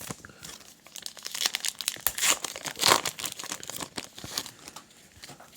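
Foil trading-card pack crinkling and tearing as it is opened by hand: a dense run of sharp crackles, busiest in the middle and thinning out near the end.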